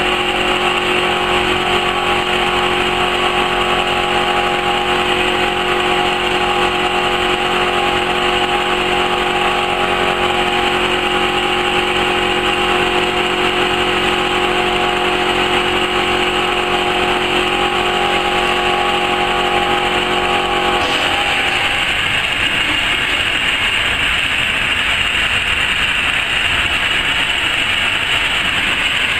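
Automatic-feed laser cloth-cutting machine with two cutting heads running: steady machine noise with a hum of several steady tones, which stops about 21 seconds in while the noise carries on.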